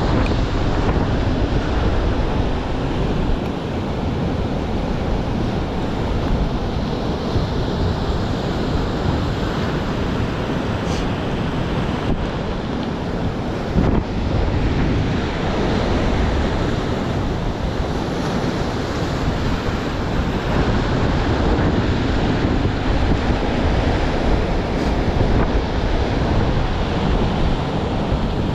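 Rough sea surf breaking and washing against the rocks below, with wind buffeting the microphone: a steady, loud rush of noise, heaviest in the low end.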